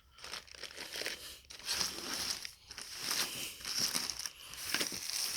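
Speaker packaging being handled and pulled away, crinkling and rustling in irregular bursts.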